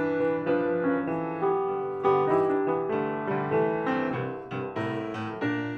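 Solo piano music, chords and a melody of struck notes that start sharply and fade, a new note about every half second.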